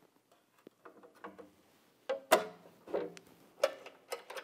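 Metal wheel-guard cover of a MAG-8200 lawn mower blade sharpener being fitted back over the grinding wheel, with the machine switched off. A string of light metallic clacks and knocks with a short ring, the loudest about two seconds in.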